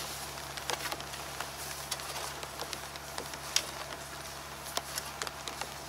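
A hoe working soil: scattered, irregular light ticks, taps and scrapes as the blade strikes and drags the earth and small clods patter down.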